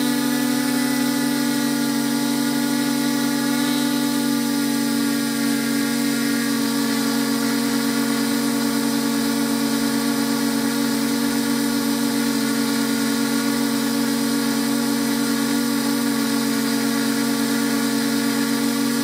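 A multirotor drone's electric motors and propellers humming steadily, heard close up from the aircraft itself. The pitch shifts slightly a few seconds in.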